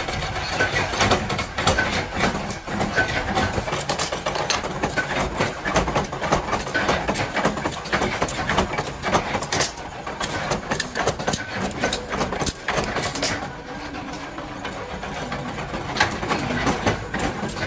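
Flywheel-driven mechanical power press running, punching pieces out of a sheet-steel strip with a fast, irregular clatter of metal strokes. It quiets for a moment near the end, then the clatter picks up again.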